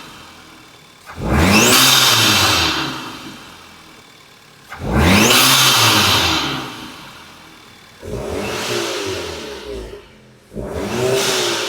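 Audi TT's 2.0 turbocharged four-cylinder free-revved through a cone-filter intake in four throttle blips: two big ones, then two shorter ones. Each rise in pitch carries an audible turbo whistle and hiss, and the throttle lift-off ends in the turbo's sneeze.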